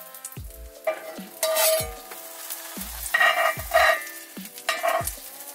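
Grilled cheese sandwich frying in an oiled cast iron skillet on low heat, a soft sizzle, under background music with held notes and a beat of deep, falling kick-drum thumps.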